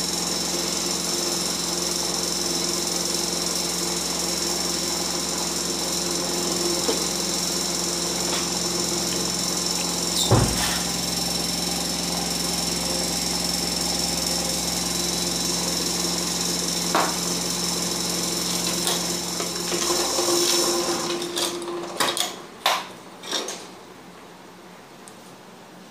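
Steady machine hum with a high whine that stops about 21 seconds in. There is one sharp knock about ten seconds in and three sharp clicks shortly after the hum stops.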